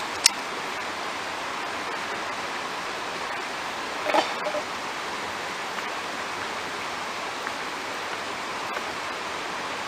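Small river rapids rushing over rocks, a steady wash of water. A sharp click comes just after the start, and a brief short sound about four seconds in.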